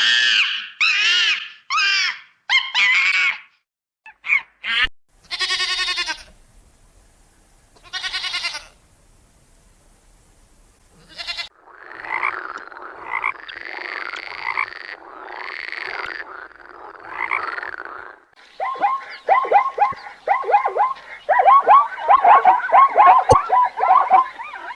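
A string of different animal calls, cut one after another with short gaps. The last few seconds hold a dense chorus of rapid, repeated croaking calls.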